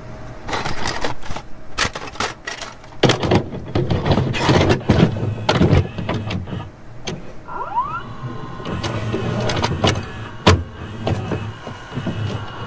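Glitchy electronic static and interference noise: irregular crackles, pops and buzzing bursts, with a brief rising warble a little past the middle.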